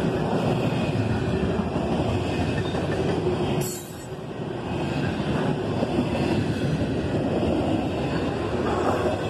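Double-stack intermodal container cars of a freight train rolling past on jointed rail, a steady rumble and clatter of wheels on the track that dips briefly about four seconds in.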